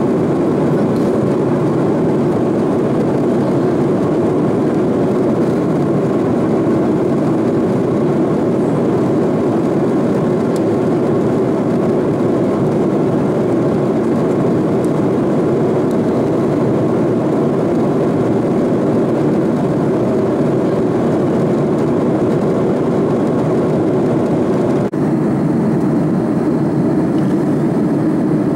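Steady cabin noise of an Airbus A330-300 airliner in cruise: an even rush of airflow and engine drone heard from inside the cabin at a window seat.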